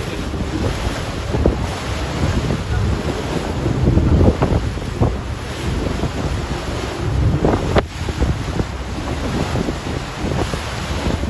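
Wind buffeting the microphone over the rush of sea water churning along the hull of a moving fishing boat, with a steady low rumble. A single sharp click comes about two-thirds of the way through.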